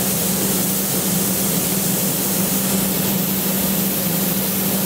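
Steady hiss of compressed air from the plural-component spray gun, with a constant low hum from the running Graco E-XP2 proportioner underneath.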